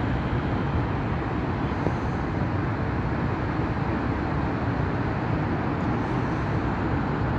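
Steady low rumble of distant city traffic, an even wash with no single vehicle standing out.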